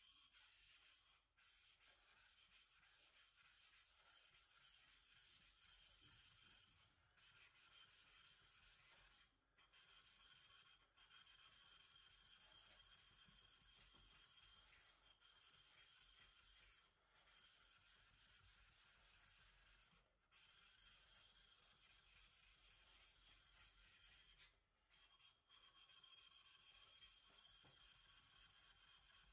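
Deba knife blade being rubbed back and forth on a wet whetstone: a faint, steady grinding hiss of steel on stone, broken by short pauses every few seconds.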